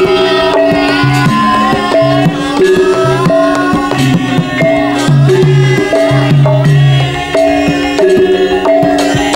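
Javanese gamelan music accompanying a Lengger dance: hand-played kendang drum strokes over ringing, sustained metallophone notes that change in a steady melodic pattern.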